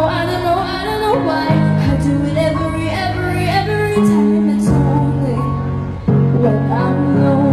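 A young female singer singing a song into a handheld microphone over instrumental accompaniment, whose held low notes change every second or so.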